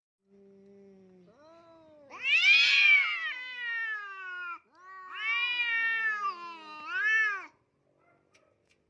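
Domestic cat yowling: three drawn-out meows whose pitch rises and falls, the first and loudest starting about two seconds in and a shorter one near the end, after a faint low moan at the start.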